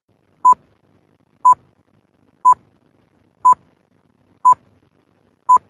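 Six short electronic beeps at the same pitch, evenly spaced one a second.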